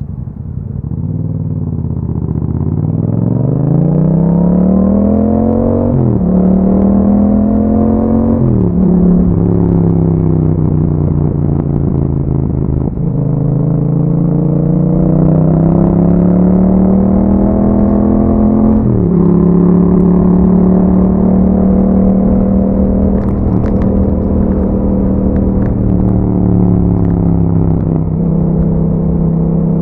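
Yamaha MT-07 parallel-twin engine with an aftermarket Akrapovic exhaust, pulling from low revs and climbing in pitch, with the revs dropping sharply at each of several upshifts, then holding a steady cruise over the last ten seconds or so.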